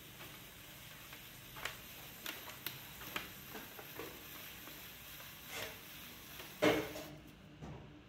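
Loop trimming tool shaving a terracotta bowl on a spinning potter's wheel: a steady scraping hiss with scattered clicks and scrapes, the loudest a little under seven seconds in, after which the hiss thins out.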